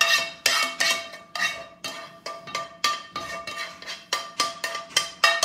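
Metal tongs clinking and scraping against a metal frying pan while shrimp are lifted out, a quick irregular run of clinks with the pan ringing on under them.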